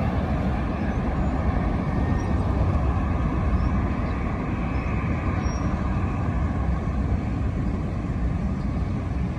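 Jet airliner engines giving a steady, loud low rumble.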